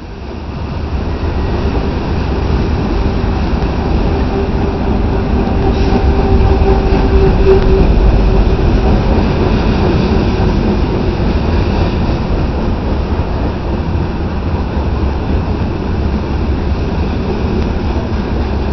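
Freight train of covered hoppers, boxcars and autoracks rolling past, its wheels on the rails making a steady rumble. A steady tone joins the rumble for several seconds in the middle.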